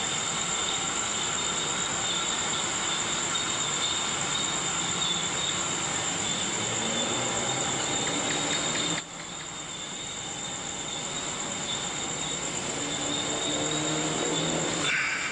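A steady, high-pitched chorus of night insects, a continuous shrill whine over a hiss. The whole sound drops abruptly about nine seconds in, then slowly rises again, with a faint low hum coming up near the end.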